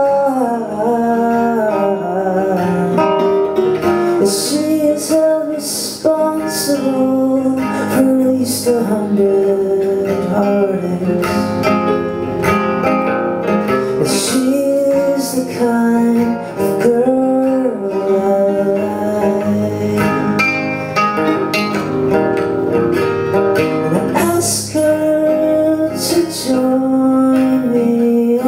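Live acoustic pop song: two acoustic guitars strummed with keyboard accompaniment and singing.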